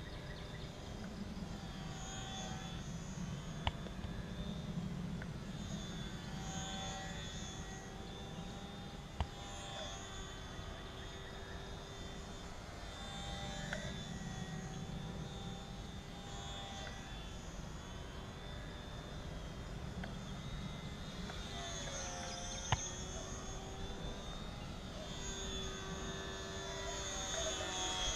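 Electric motor and propeller of a Hobbyzone Sport Cub S RC plane in flight: a thin whine that drifts up and down in pitch and swells and fades as the plane circles, over a steady low rumble.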